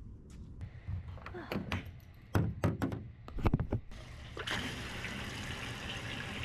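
Several knocks and clunks, then from about four and a half seconds in a steady rush of fuel from a self-serve pump nozzle filling the plane's wing tank.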